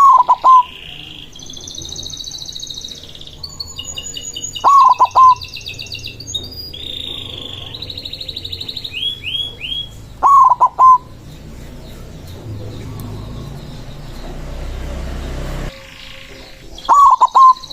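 White zebra dove (perkutut) cooing: four short, loud phrases spaced about five to six seconds apart. Between them runs a steady background of high chirps and trills from small songbirds.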